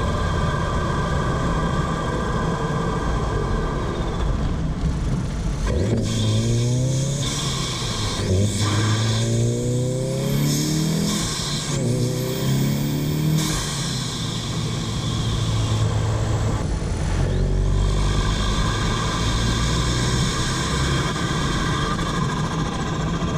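Tuned Volkswagen Golf 2.0-litre turbocharged four-cylinder engine and turbo, heard from the engine bay. The engine runs steadily, then from about six seconds in its pitch climbs in several runs under acceleration, breaking off between them, with a very high whine over the later runs, before it settles back to steady running.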